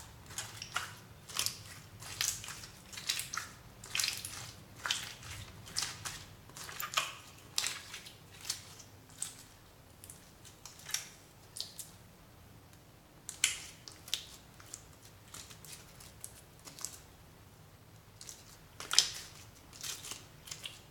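Translucent pink slime being kneaded and pressed by hand on a tabletop: irregular sticky clicks and pops as air pockets burst and the slime pulls off the fingers, coming thickly at first, thinning out after the middle, with one loud pop near the end.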